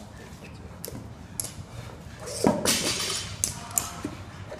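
Bumper plates being worked off a barbell's metal sleeve: scattered clinks and knocks, with a louder thud and scrape about halfway through.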